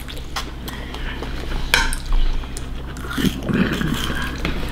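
Cutlery clinking against bowls and plates during a meal: a handful of separate sharp clicks, the loudest a little under two seconds in.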